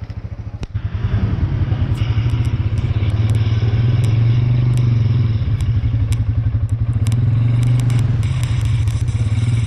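ATV engine running under throttle during a ride, a low pulsing drone that picks up about a second in and then holds steady, with scattered clicks and rattles.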